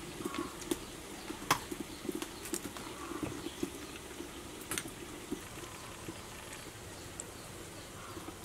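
A metal spoon scraping and clicking against a small ceramic bowl of pork dip as crisp cabbage leaves are handled, with a few scattered sharp clicks, the loudest about one and a half seconds in.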